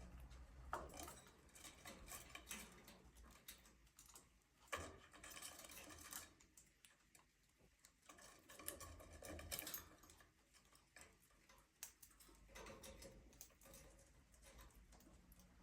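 Near silence with faint, irregular ticks and taps: small sounds of budgies moving about their aviary, with no clear chirping.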